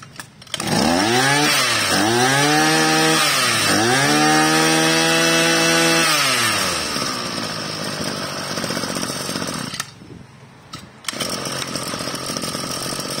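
Kubota 26cc two-stroke brush cutter engine revved three times, the last rev held for about two seconds, then dropping back to a steady idle. The sound briefly falls away about ten seconds in, then the idle carries on.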